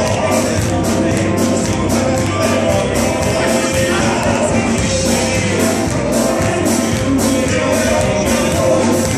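Southern gospel male quartet singing live with a band of drums, keyboard and electric guitar, the drums keeping a steady driving beat of about three hits a second.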